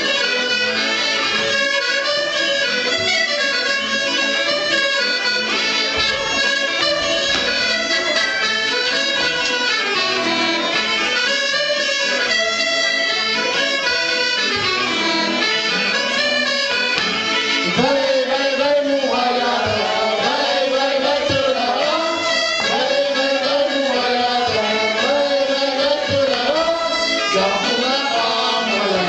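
Live traditional Auvergnat folk music played by a small band for dancing, with voices singing the tune and coming to the fore about two-thirds of the way through.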